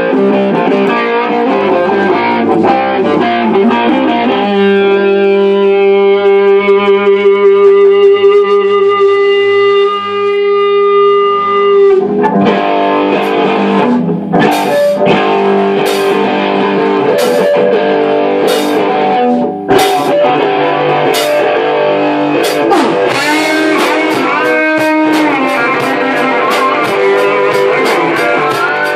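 Electric guitar played loud through an amp: riffing, then a long held chord ringing from about five to twelve seconds in. Drum hits join at about fourteen seconds, spaced under a second apart, and come thick and fast with the guitar near the end as the band plays together.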